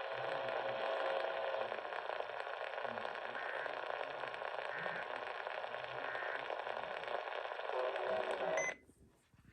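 Hissing, crackling static from a weakly received radio station, with three faint short bursts of tone partway through that fit an Emergency Alert System data header coming through. The static cuts off abruptly near the end.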